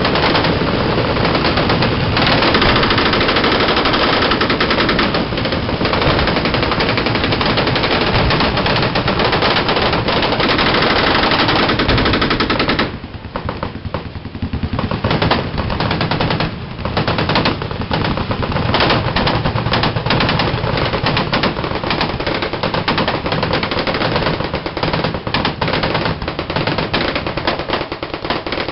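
Many fully automatic machine guns firing at once, a dense unbroken stream of rapid shots. About thirteen seconds in it drops back and thins into separate, overlapping bursts of automatic fire.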